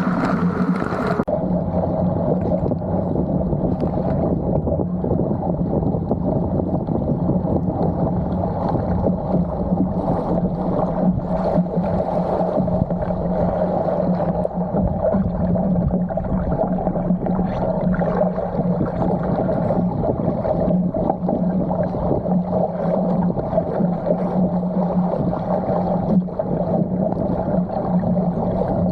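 Steady, muffled hum over rushing water from a sailing canoe moving fast, as heard on board. About a second in, the sound changes abruptly and loses its higher hiss.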